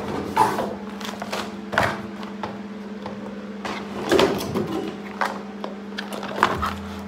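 Packaging being handled: cardboard boxes and a nylon drawstring bag rustling and knocking lightly several times, over a steady low hum.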